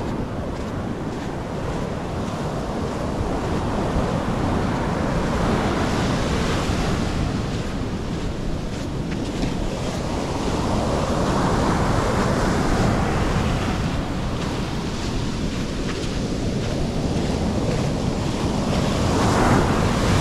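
Mediterranean waves breaking and washing up the beach, surging louder about halfway through and again near the end, with wind on the microphone.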